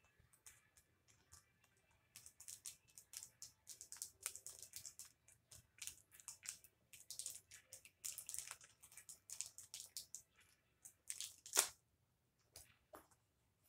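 Small plastic packet crinkling and tearing as it is picked open by hand, in quick irregular crackles from about two seconds in, the loudest one shortly before the end.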